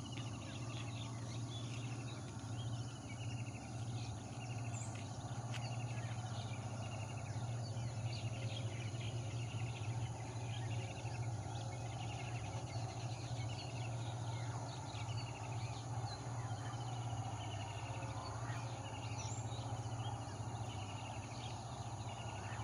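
Outdoor rural ambience: many short, repeated chirping trills, about one a second, over a steady low hum.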